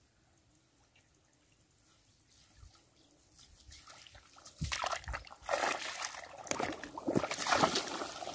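Water trickling and splashing as a fishing net is hauled up out of shallow ditch water. It is faint at first and grows into loud, irregular splashing from about halfway through.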